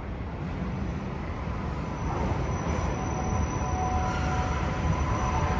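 Train rumbling through the station, its low noise growing steadily louder, with faint thin steady whines over it from about two seconds in.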